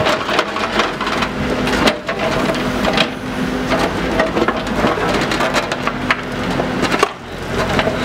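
Excavator bucket digging and scraping through gravel, soil and broken asphalt in a trench: a constant crunching and clatter of stones over the steady hum of the excavator's engine. It drops off briefly about seven seconds in.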